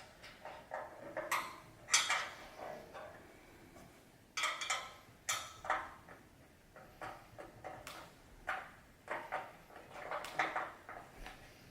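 Irregular metallic clinks and clanks as screw-in casters are fitted by hand into the bottom of a steel two-post server rack, one or two louder knocks among them.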